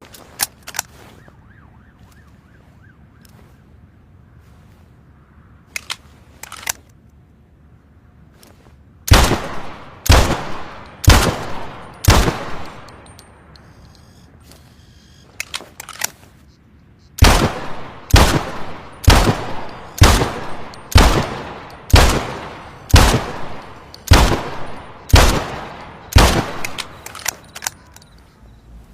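DE-44 pistol firing. A few short clicks come first, then four loud shots about a second apart, a pause, and ten more shots at the same pace, each fading out quickly.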